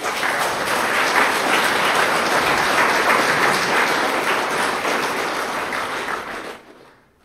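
Audience applause, starting suddenly and dying away about six and a half seconds in.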